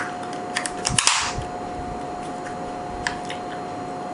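Clicks and snaps from an air pistol's plastic and metal parts being handled, with a sharp snap about a second in and a few lighter clicks later.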